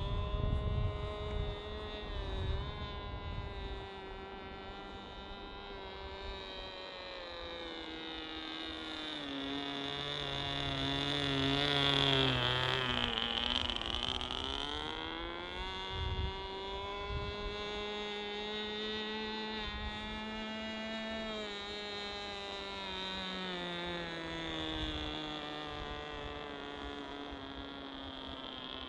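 RC model airplane's motor and propeller droning in flight with a high whine. The drone grows loudest about twelve seconds in as the plane comes close, its pitch dipping and then rising again. Wind rumbles on the microphone in the first few seconds.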